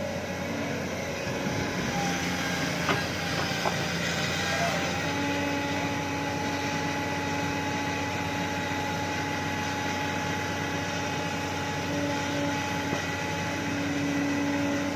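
Heavy diesel machinery running steadily, with a few knocks about three seconds in and a steady pitched whine that sets in partway through.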